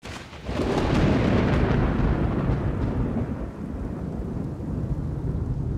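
A thunderclap that starts suddenly with crackling and rolls into a long low rumble, slowly easing, over a steady hiss of rain.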